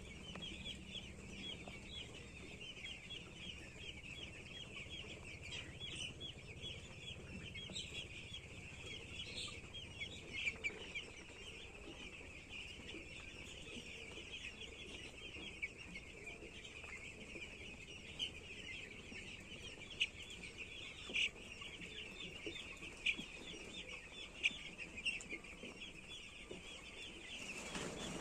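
Dense, continuous cheeping of a large flock of young broiler chicks, many short high peeps overlapping, with a few louder single peeps standing out now and then.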